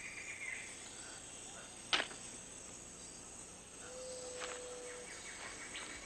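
Rainforest ambience: an insect trills in rapid high pulses at the start and again near the end, with a steady low whistle held for about a second shortly before the second trill. A single sharp click about two seconds in.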